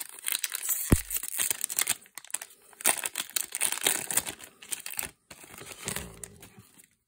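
Foil wrapper of a Magic: The Gathering draft booster pack being torn open and crinkled by hand, in quick crackly bursts, with one dull thump about a second in.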